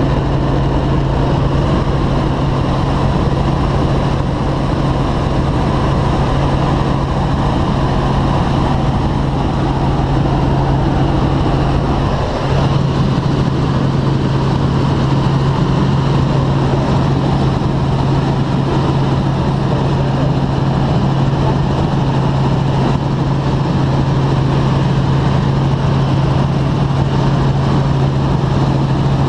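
Helicopter in flight: a steady, loud drone of rotor and engine with a strong low hum, dipping briefly about twelve seconds in.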